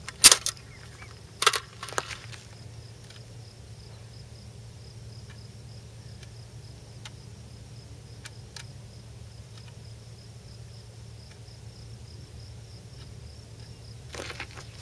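AKM rifle on its bipod being handled: a sharp metal clack just after the start as the magazine is worked, two smaller clacks a second or two later, then a few faint ticks and rustling of the sling on gravel near the end, over a faint steady high insect buzz.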